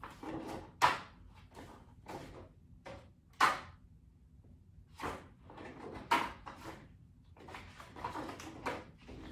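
A series of knocks and rustles from objects being handled and set down on a hard surface. The two sharpest knocks come about a second in and about three and a half seconds in.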